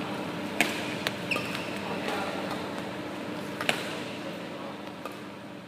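Two sharp cracks of a badminton racket striking a shuttlecock, about three seconds apart, with a short squeak on the court between them and a steady hum of the hall behind.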